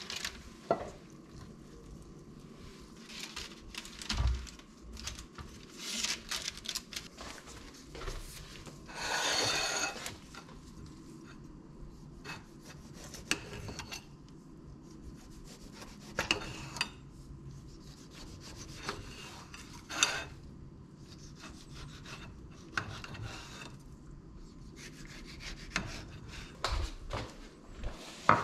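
Kitchen handling noises: metal tongs scraping and tapping on a parchment-lined metal baking tray, then a knife cutting a tomato on a plate. Short, irregular scrapes and taps, with one longer scrape lasting about a second, about nine seconds in.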